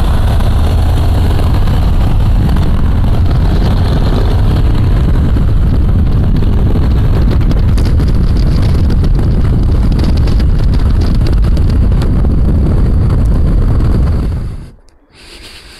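Harley-Davidson V-twin motorcycle cruising at steady road speed: a deep, steady engine rumble mixed with wind rushing over the microphone. It cuts off abruptly near the end.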